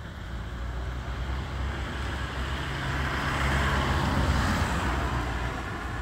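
A road vehicle passing close by, its noise swelling to a peak about four seconds in and then fading, over a steady low engine hum.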